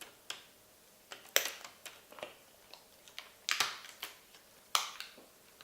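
Plastic clips of a laptop screen bezel clicking and snapping loose one after another as a plastic card pries the surround away, with short scraping sounds after several of the snaps. About five sharp snaps, irregularly spaced.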